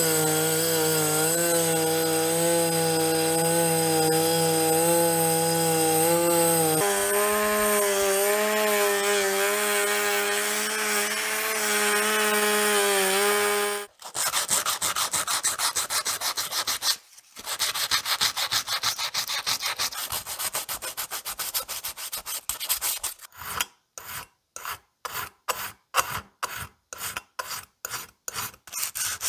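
A rotary tool spinning a disk brush whines steadily as it scrapes old black paint from inside a brass binocular barrel, its pitch dropping a little about halfway. Then it cuts off and is replaced by brass being hand-sanded: a continuous rasping scrub, then short, evenly spaced strokes of a flat abrasive stick, about three a second.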